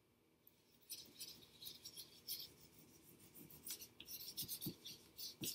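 Felt-tip marker scratching on paper in many short, quick strokes, drawing blades of grass. Faint.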